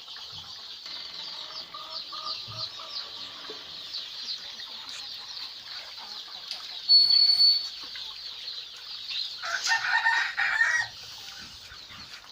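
A flock of chickens with chicks: constant high-pitched peeping and clucking, a sharp high peep about seven seconds in, and a rooster crowing about ten seconds in.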